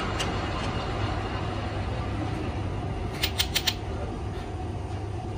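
Steady low machine hum while the lathe's three-jaw chuck stands stopped; about three seconds in, four quick sharp metallic clicks as the chuck is worked loose by hand to free the part.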